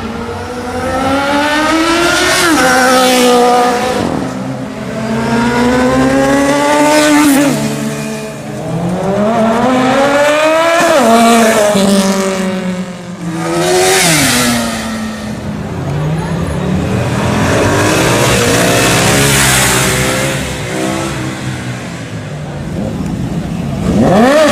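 Four-cylinder sport motorcycles accelerating hard past one after another, their engines revving up to a high pitch and then dropping away as each goes by, about five times.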